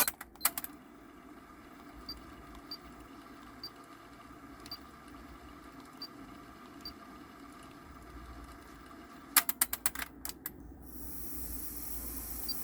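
Sharp mechanical clicks from operating the Pioneer KEH-M5000 car cassette stereo: a couple at the start, faint regular ticking, then a quick run of clicks about nine to ten seconds in, followed by rising hiss as playback resumes.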